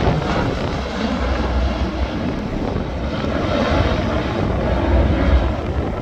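Lockheed L-100 Hercules cargo plane's four turboprop engines running steadily as it comes in low over the runway to land.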